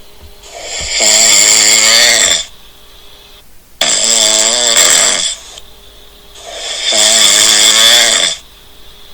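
A sleeping cat snoring loudly: three long snores roughly every three seconds, with quieter gaps between.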